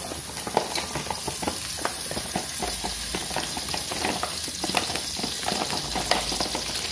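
Hot cooking oil sizzling on a gas stove: a steady hiss with frequent irregular pops and crackles.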